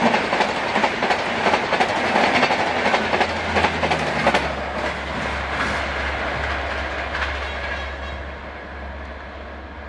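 LHB coaches of an express train passing at about 130 km/h, the wheels clattering fast over the rail joints. The clatter thins out about four seconds in, and the sound fades away as the train recedes.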